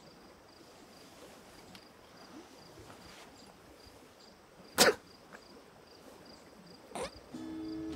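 Crickets chirping faintly and steadily, about two and a half chirps a second. One short, sharp noise comes about five seconds in, and acoustic guitar music starts near the end.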